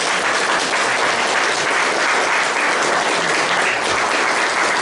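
Audience applauding, steady, dense clapping.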